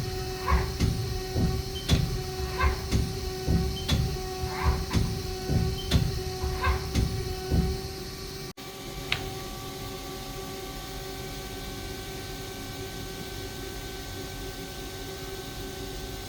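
2012 Haas ST40L CNC lathe running: a rhythmic clunking about one and a half times a second over a steady machine hum with a few steady tones. The clunking stops abruptly about eight and a half seconds in, leaving only the hum.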